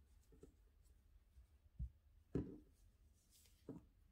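Near silence broken by three faint, short handling sounds, soft knocks and rustles, from hands turning over and flattening a crocheted sweater on a table top. The loudest comes a little past halfway.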